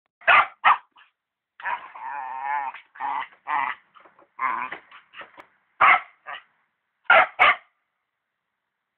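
A dog barking in short, sharp barks, with a drawn-out, wavering vocal sound about two seconds in. A quick double bark comes near the end.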